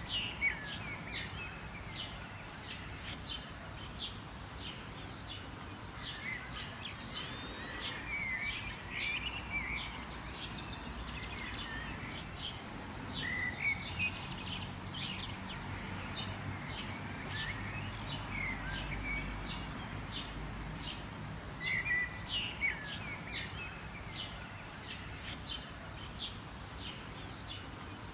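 Several birds chirping and twittering in short, quick calls over a steady background of outdoor hiss and low rumble.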